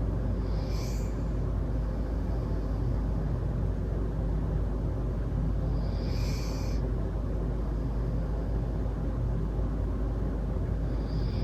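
Sleeping Labrador mix dog snoring softly: a brief high-pitched breath sound about every five to six seconds, three times, over a steady low rumble.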